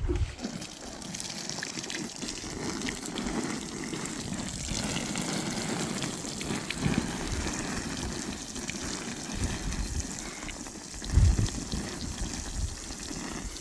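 Water pouring and splashing steadily, with a low thump about eleven seconds in.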